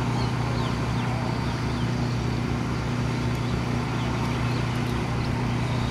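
Steady low mechanical drone of running engines or ground machinery on an airport apron, holding an even pitch, with faint short falling chirps high above it.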